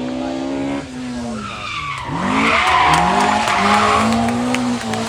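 Rally car engine at high revs, lifting briefly, then blipping up and down several times as the tyres slide and squeal. The engine then settles to a steady high note.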